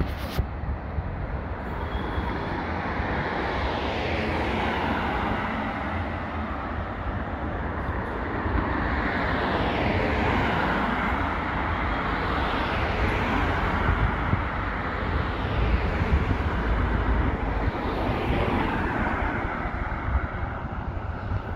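City street traffic, with cars driving past one after another. Each car's tyre and engine noise swells and fades as it goes by, over a steady low rumble.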